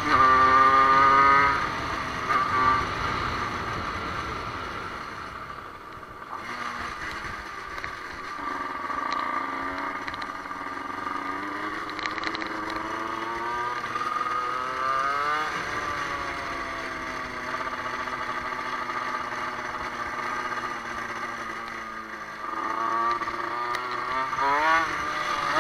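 Small dirt bike engine under way, heard from the rider's position: it revs high at first, eases off, then climbs and falls through the revs several times as the bike accelerates and slows, with wind noise throughout.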